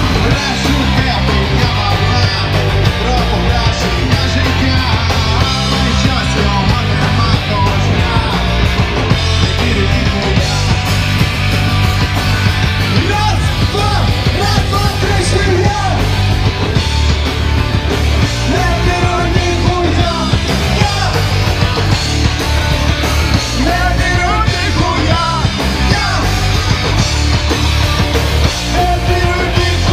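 Live punk rock band playing loudly on electric bass, guitar and drum kit.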